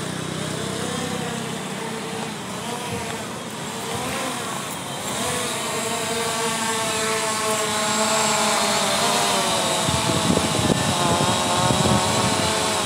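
Small quadcopter drone's propellers whining as it descends and hovers low, the pitch wavering up and down. It grows louder in the second half, with gusty buffeting in the last few seconds as it is caught by hand.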